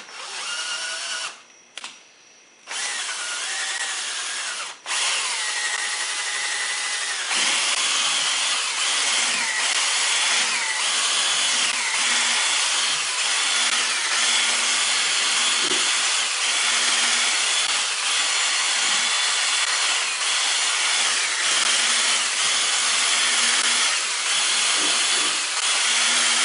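Cordless drill spinning a Meguiar's foam buffing pad against a plastic headlight lens to polish it. There are a few short trigger bursts at first; from a few seconds in the drill runs steadily, and it gets louder after about seven seconds. Its motor whine dips in pitch again and again as the pad is worked over the lens.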